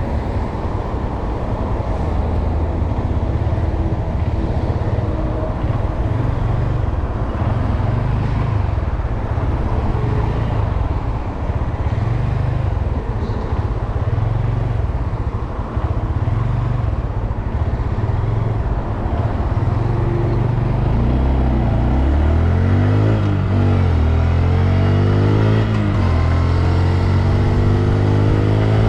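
Honda Grom's small single-cylinder engine running under way, mixed with rushing wind and road noise. From about two-thirds of the way through, the engine's pitch rises and falls several times as the revs change.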